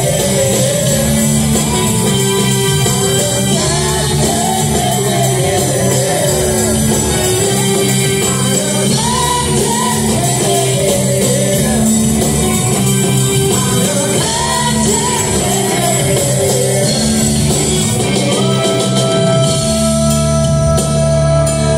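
A rock band playing live with a sung lead vocal over guitar, keyboards and drums, recorded on a phone in the audience. Near the end the singing stops and the band holds steady sustained chords.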